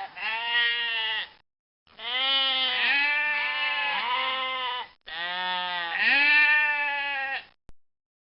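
Bleating of sheep or goat-type livestock: three separate stretches of calls with short silent gaps between, each a run of several wavering bleats that rise and fall in pitch.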